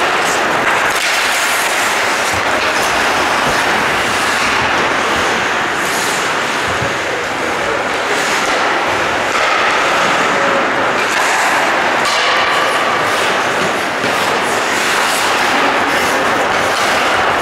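Ice hockey play in an indoor rink: a steady, loud noise of the hall with scattered sharp scrapes and clacks from skates, sticks and puck on the ice.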